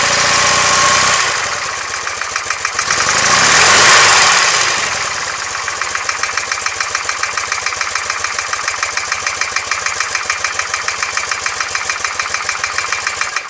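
BMW R100S air-cooled boxer twin revved twice, near the start and again around four seconds in, then settling to an even idle. The owner reports a knock from the left side of this engine when cold that goes away once warm.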